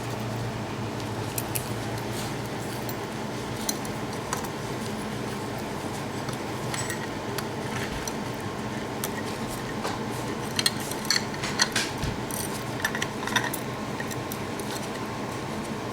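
Small metal parts clinking and rattling as a ceiling fan pull-chain switch is handled and screwed onto the fan's switch housing, in scattered light ticks that come thickest about ten to thirteen seconds in, over a steady low hum.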